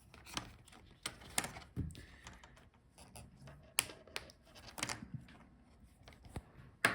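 Scattered light clicks and scrapes of small plastic laptop parts being handled while an internal speaker is lifted out, with one sharper click near the end.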